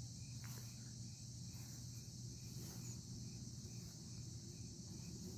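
Night insects calling: a steady high-pitched trill, with one cricket's even chirps about twice a second and a faint low steady hum underneath.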